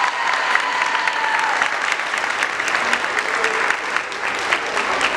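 Audience applauding, many hands clapping. A held tone ends about a second and a half in.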